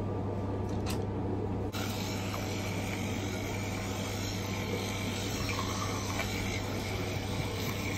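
Teeth being brushed with an electric toothbrush, an even scrubbing noise that starts about two seconds in, over a steady low hum.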